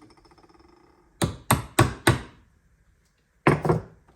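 U-joint bearing cap being tapped into the prop shaft yoke with a hammer to get it started: four quick metal knocks, then two more about a second later. A fading metallic ring from a strike just before is heard at the start.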